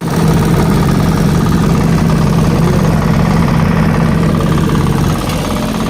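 A machine engine running steadily and loud at a constant speed. It starts abruptly at a cut.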